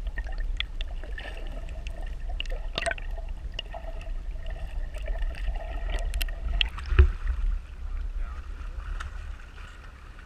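Muffled water noise picked up by a camera held underwater: a steady low rumble with scattered sharp clicks and one louder knock about seven seconds in.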